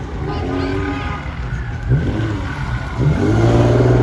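A car engine revving hard in bursts as the sedan spins donuts, its pitch climbing and falling again. About three seconds in it revs up and is held high and loud.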